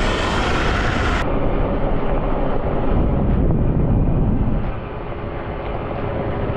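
Wind buffeting the microphone and tyre rumble on gravel from a Sur Ron electric dirt bike ridden at speed, easing slightly about five seconds in.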